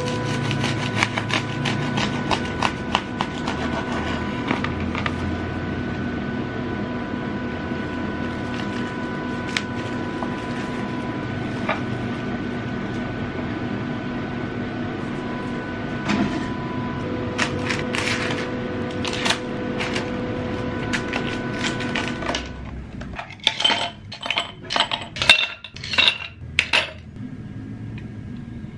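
Kitchen utensils tapping and clattering on dishes over a steady hum. The hum stops a little after twenty seconds in, and a run of loud, ringing clinks of cutlery and dishes follows near the end.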